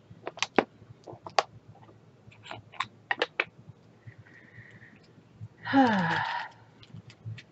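Sharp, separate clicks and taps of small plastic diamond-painting drill bottles and their lids being handled and set into a plastic storage case. About six seconds in comes the loudest sound, under a second long, rough and with a pitch that falls steeply.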